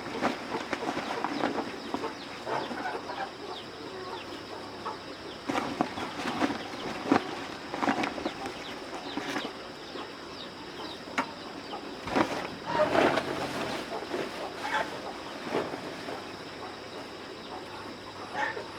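Chickens clucking, with scattered short clicks and rustles at irregular intervals.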